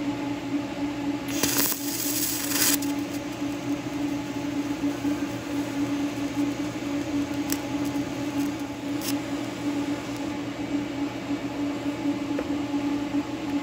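TIG welding on a cast iron vise jaw: a steady electrical hum from the welding setup, with a burst of crackling hiss about a second in as the arc strikes, and a couple of faint clicks later.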